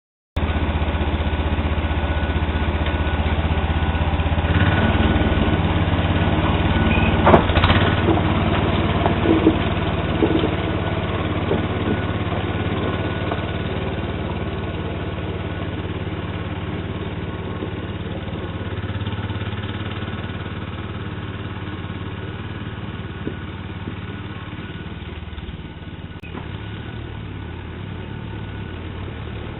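Sears Suburban SS12 garden tractor's engine running steadily while plowing snow. A few sharp clanks come about seven to ten seconds in, and the engine sound slowly grows quieter after that.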